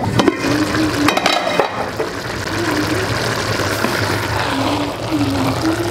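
Steady rushing noise of a stove burning under a large aluminium pot of pulao as it cooks. A perforated metal skimmer and the pot lid clatter against the pot near the start and again about a second in.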